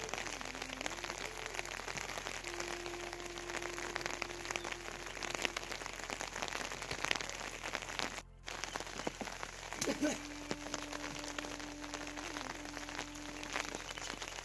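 Steady rain falling, a dense patter of drops, with a brief cut-out about eight seconds in. Faint held tones sound twice underneath.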